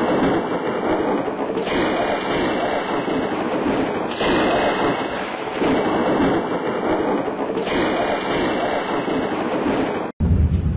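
Heavy thunderstorm: a steady rush of rain and wind with no sharp thunderclap. Near the end it cuts abruptly to a deeper, heavier rumble.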